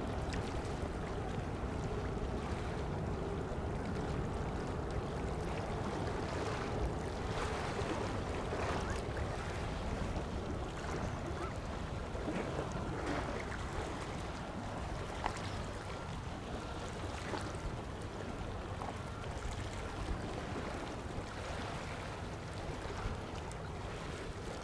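Distant jet engine rumble from a Boeing 737-800's CFM56-7B turbofans at low power after touchdown, fading slowly as the airliner slows and turns off the runway.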